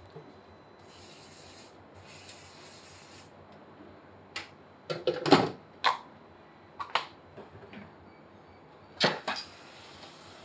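Scattered clinks and knocks of pots, lids and utensils handled at a kitchen stovetop, loudest in a cluster about halfway through.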